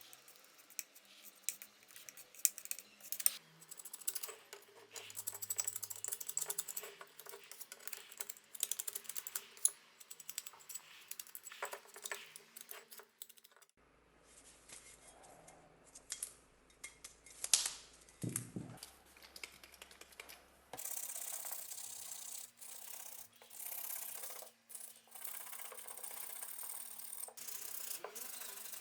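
Hand work on small metal tool parts: a run of clicks, taps and scrapes, then, after a cut, a steady hissing scrub in strokes with short pauses.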